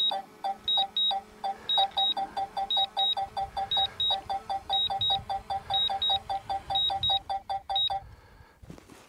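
DJI Mini 4 Pro drone's return-to-home landing alert: a steady electronic beeping, short low beeps about four a second with a pair of higher beeps about once a second. It stops near the end, as the drone settles on the landing pad.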